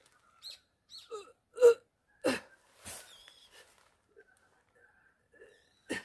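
Frogs croaking: a run of short, irregular calls, the loudest about a second and a half in, then fainter and sparser.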